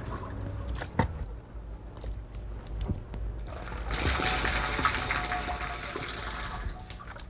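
Watery glaze liquid poured from a gourd dipper through a wooden sieve into a large earthenware jar, a loud rushing splash that starts about four seconds in and stops near the end. Before it only small handling sounds, with one sharp knock about a second in.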